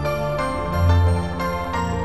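Background music: held chords over a low bass line, the notes changing every half second or so.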